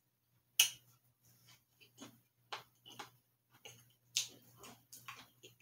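Close-up chewing of a bite of soft frosted cookie: irregular wet mouth clicks and smacks, a dozen or so. A faint steady low hum sits underneath.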